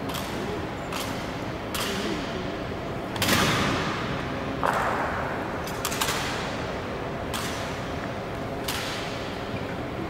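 Sharp clacks and slaps of a rifle drill: hands striking the guards' bayoneted rifles as they are spun and shifted, about nine strikes roughly one every second and a half. The loudest comes about three seconds in, and each rings out in the reverberant marble hall.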